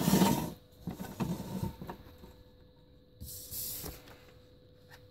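Handling noises as a bare motorcycle wheel rim is spun by hand on a workbench: a short rushing scrape at the start, then scattered soft knocks and rustles, and a hissing rustle about three seconds in.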